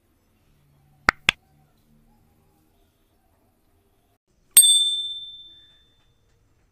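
Subscribe-button sound effect: two quick mouse clicks about a second in, then a single bright bell ding a few seconds later that rings out over about a second.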